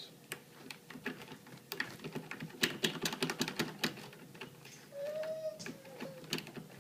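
Lock pick working the pins of a deadbolt lock cylinder: a run of irregular small metallic clicks as the pins are knocked up.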